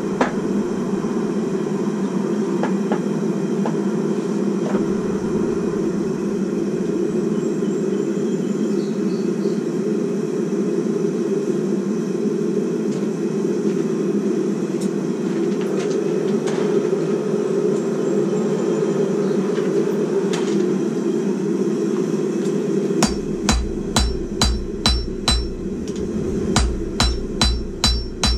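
Forge running with a steady low hum. From about four-fifths of the way in, a hand hammer strikes red-hot steel on the anvil about twice a second, each blow with a bright metallic ring.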